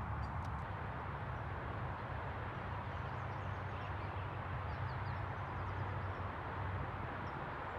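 Steady outdoor background rush with a few faint bird chirps around the middle.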